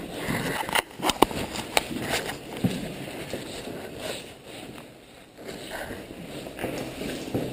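Footsteps on a debris-strewn floor with rustling and a few sharp clicks and knocks about one to two seconds in, quieter for a moment near the middle.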